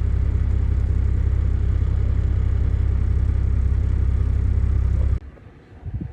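Steady low drone of a Toyota Land Cruiser HZJ75 troop carrier's diesel engine and road noise while driving, heard from inside the vehicle. It cuts off suddenly about five seconds in, leaving a much quieter background with a brief knock near the end.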